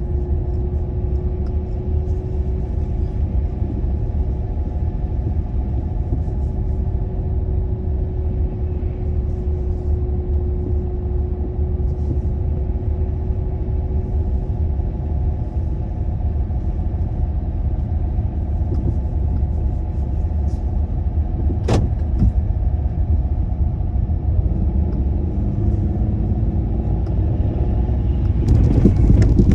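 Car driving, a steady low engine and road rumble with a faint drifting hum. One sharp click about 22 seconds in, and the rumble grows louder near the end.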